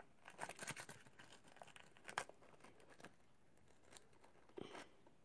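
Faint crinkling and rustling of a paper flavour-powder packet being handled, with a plastic measuring spoon scooping powder from it; a few short soft rustles, the last near the end.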